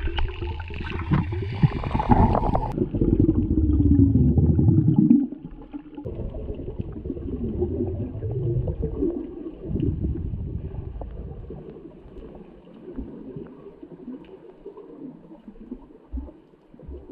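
Muffled underwater sound from an action camera submerged while snorkeling: water sloshing and gurgling, with low wavering tones that rise and fall. It is loudest for the first five seconds, then drops and carries on quieter.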